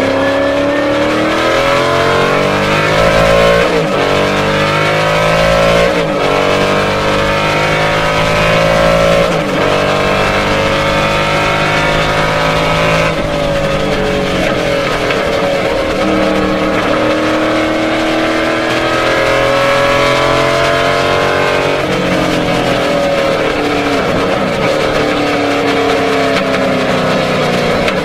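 Lola T70 Mk III B's 450 hp Chevrolet V8 at racing speed, heard from inside the cockpit. The revs climb and fall back sharply several times through the gear changes, then sag and build again near the end.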